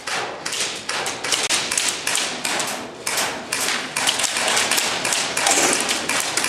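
Airsoft guns firing: a rapid, irregular string of sharp clacks, several a second.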